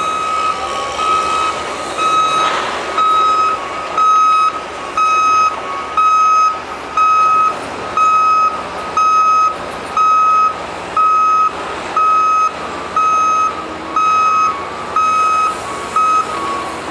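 Back-up alarm on heavy construction equipment beeping steadily, about one beep a second, starting about two seconds in, over a steady background of machinery noise.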